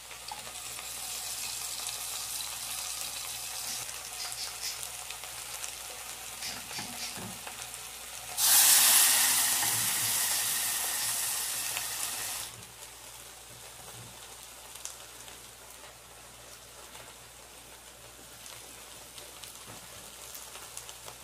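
Lard sizzling as it melts in a hot pan, then a loud burst of sizzling about eight seconds in as cooked red beans are ladled into the hot fat, which dies down after about four seconds to a quieter steady sizzle as the beans are stirred.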